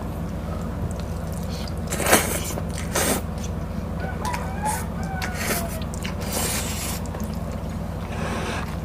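Egg noodles being slurped and chewed close to the microphone, with sharp slurps about two and three seconds in and a longer slurp just before seven seconds. Faint sliding calls can be heard in the background midway, over a steady low hum.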